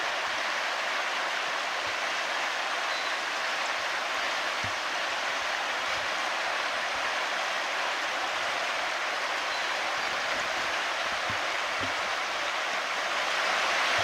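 Fast mountain creek rushing over rocks: a steady, even rush of white water, growing a little louder near the end.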